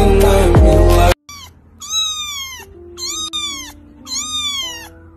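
A song with a heavy beat cuts off abruptly about a second in. Then a kitten meows over and over, about once a second, each meow a high cry that falls in pitch, with faint soft notes held underneath.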